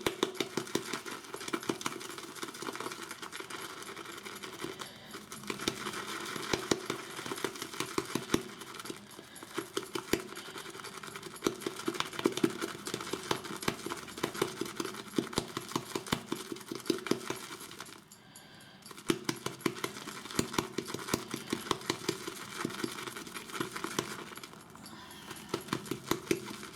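Badger-hair shaving brush whipping up shaving-soap lather in a bowl: a rapid, continuous clicking and swishing of wet bristles, with a brief pause about eighteen seconds in.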